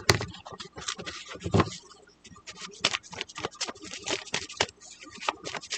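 A deck of tarot cards being shuffled by hand: a quick, irregular run of card-edge slaps and scrapes.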